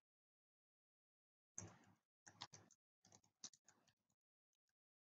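Faint keystrokes on a computer keyboard: a quick, irregular run of clicks starting about a second and a half in.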